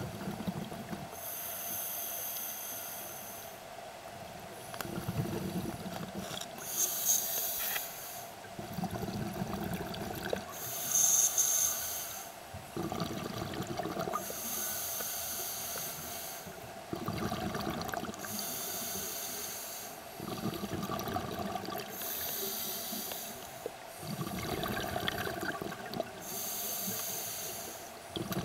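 A scuba diver breathing through an open-circuit regulator underwater: a hissing inhalation through the demand valve, then a gurgle of exhaled bubbles, repeating slowly and regularly, a breath every four seconds or so.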